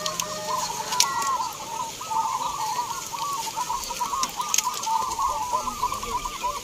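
Chorus of many zebra doves (perkutut) cooing at once, their overlapping arched coos running without a break. A few sharp clicks cut through, the loudest about a second in.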